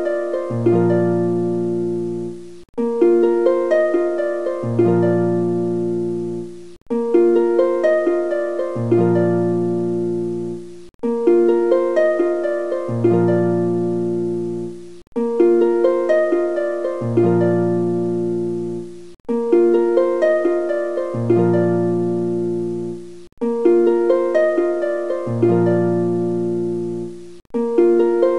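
Background music: a short plucked-string melody looped about every four seconds, with a brief gap each time the loop restarts.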